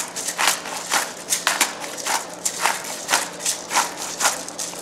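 Disposable black pepper grinder twisted by hand, peppercorns crunching in a quick run of rasping strokes, about three to four a second.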